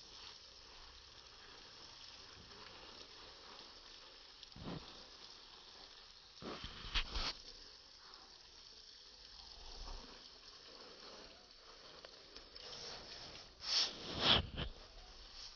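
Outdoor noise: a steady hiss broken by a few louder rushing gusts, one short at about five seconds, a double one near seven seconds, and the loudest pair near the end.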